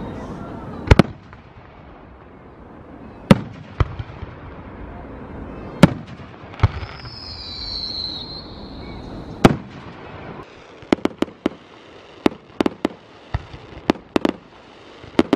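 Fireworks display: aerial shells go off as single loud bangs every two or three seconds, then a quick run of sharp cracks in the last few seconds, with a high whistling tone partway through.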